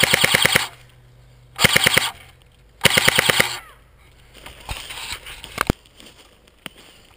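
Airsoft gun firing on full auto in three short bursts of rapid shots, each a second or less, followed by quieter rustling and a couple of single sharp clicks.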